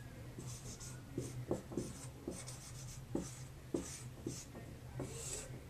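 Dry-erase marker writing on a whiteboard: a string of short strokes of the tip across the board, with light taps between them, over a faint steady low hum.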